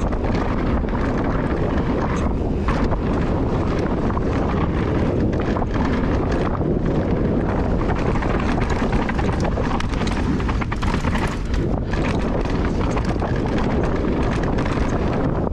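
Wind buffeting the microphone on a mountain bike speeding down a rocky dirt trail, with a steady rush of tyre noise and frequent short clicks and knocks from the bike rattling over stones and roots.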